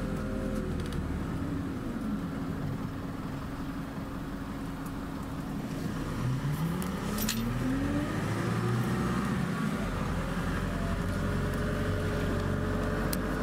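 A bus running, heard from inside its cabin as it pulls away and drives on. About six seconds in, the engine note climbs steadily as the bus speeds up.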